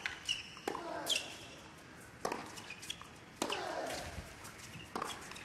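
Tennis rackets striking the ball in a baseline rally on a hard court: about four sharp pops roughly a second and a half apart over a hushed crowd.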